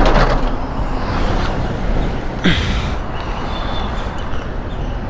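Steady rumble of passing road traffic, with a brief louder swell about two and a half seconds in.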